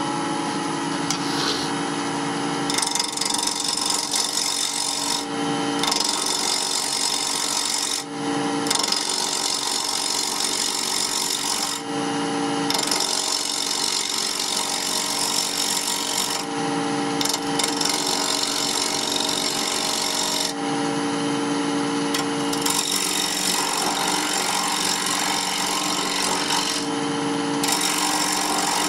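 Wood lathe running with a hand-held turning chisel cutting a spinning wooden spindle: a steady motor hum under a dense scraping hiss of the cut. The cutting starts about three seconds in and comes in long passes, broken by short pauses where only the lathe's hum is heard.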